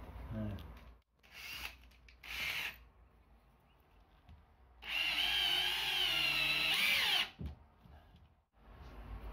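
Makita cordless drill boring into the timber bottom plate of a stud frame, re-drilling a bolt hole. It runs in two short bursts, then once more for about two seconds with a wavering whine before stopping.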